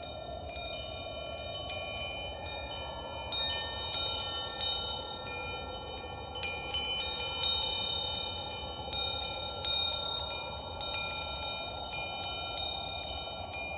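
Wind chimes ringing: clear metallic tones struck at irregular moments, overlapping and ringing on, the loudest strike about halfway through, over a steady soft rushing background.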